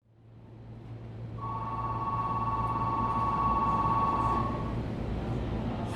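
Low steady hum of a stopped electric train, with a steady two-pitched electronic tone sounding for about three seconds over it, typical of a station departure signal before the doors close.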